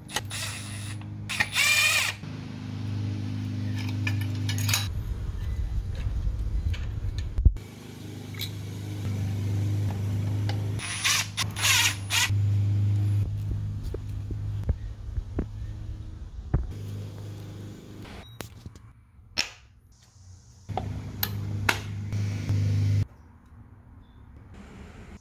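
Milwaukee M12 cordless driver motor running in several bursts of a few seconds each while turning out and driving in the screws of a distributor ignition coil, with sharp clicks and knocks of tools and parts between the bursts.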